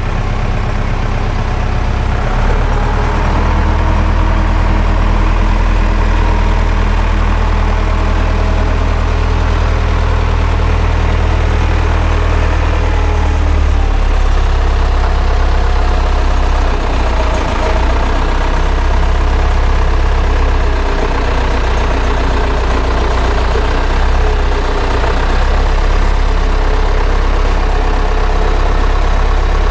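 A tractor's diesel engine running steadily at low revs, its note shifting slightly about halfway through.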